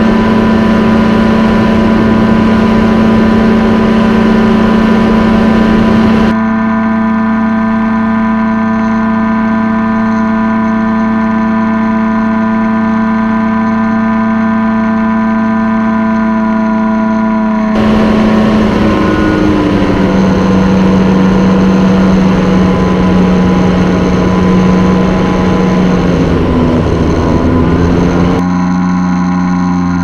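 Paramotor trike's engine and pusher propeller droning steadily in flight. The drone changes abruptly twice, and after about 18 s its pitch sags, then climbs again near the end.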